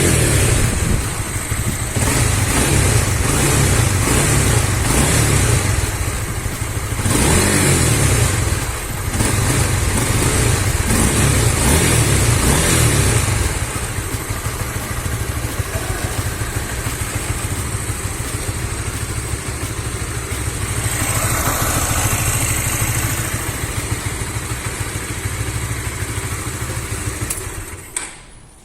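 Honda Supra GTR 150's single-cylinder engine, fitted with a UMA Racing aftermarket air filter, revved in several blips to show its intake sound. It then settles to a steady idle and stops near the end.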